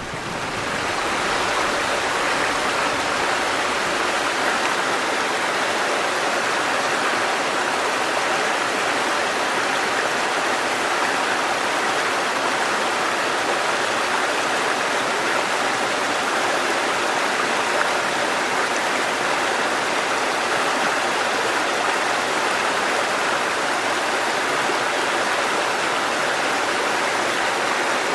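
Fast-flowing stream rushing over rocks, a steady full rush of water that fades in over the first second or so.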